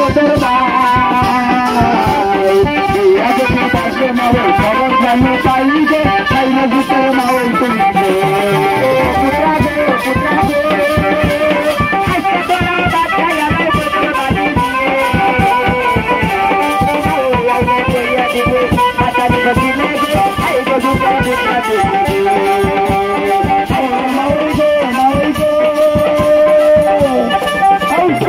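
Folk song: a man singing a held, stepping melody into a microphone, over plucked-string accompaniment and a steady rattling, drumming beat.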